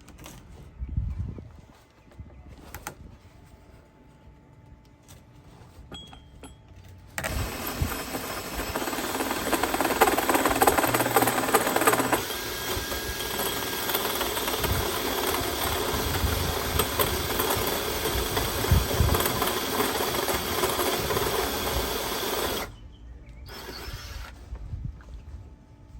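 Power drill with a hole saw cutting a through-hole in a boat hull. It starts abruptly about seven seconds in, runs as a loud, steady grinding for about fifteen seconds, and cuts off suddenly.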